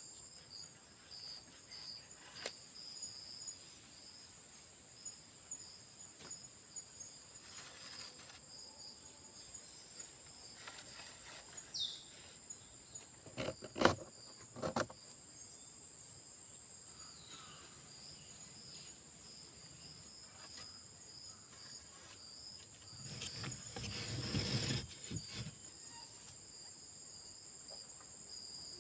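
Steady high-pitched chorus of forest insects, in two unbroken high bands. Over it come a few sharp knocks or clicks around the middle, the loudest one about halfway through, and a brief scraping rustle near the end.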